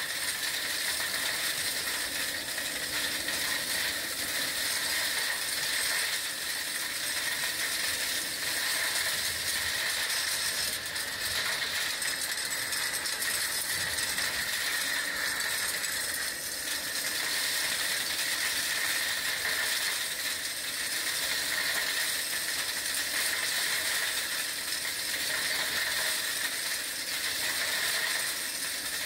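Kärcher industrial vacuum cleaner running steadily while sucking up gravel and construction rubble, with stones rattling and clattering up the rigid wand and hose over the constant suction noise.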